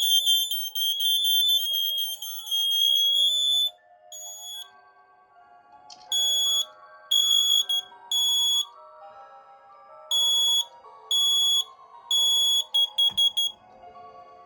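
Interconnected smoke and CO alarms sounding together in a loud, high-pitched piezo blare that cuts out about three and a half seconds in. After one lone beep, a single alarm keeps beeping in groups of three short beeps with a pause between groups, twice, then gives a few quick chirps.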